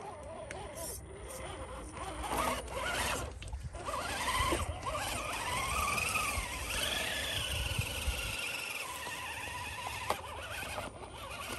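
Radio-controlled rock crawler with a 20-turn brushed motor driving, its motor and gears whining. The whine rises and falls in pitch with the throttle over several seconds in the middle.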